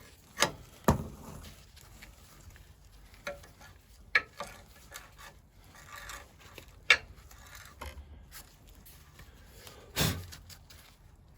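Scattered clinks and knocks of metal hand tools and small engine parts being handled and set down, a dozen or so separate strikes with quiet gaps between them.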